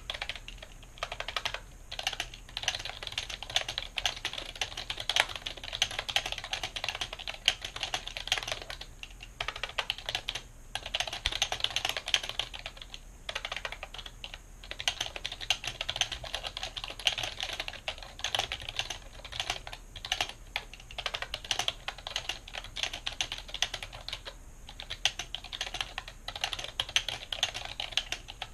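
Fast typing on a mechanical keyboard, at about 80 words per minute: a dense run of key clicks with brief breaks every few seconds. The keyboard rests on a cloth mat.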